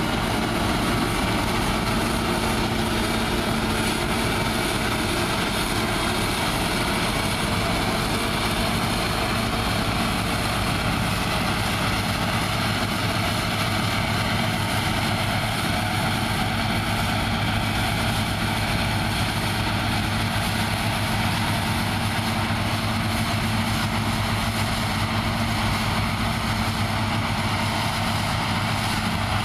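New Holland TC54 combine harvester running steadily while harvesting, its engine and threshing machinery giving an even, unbroken drone.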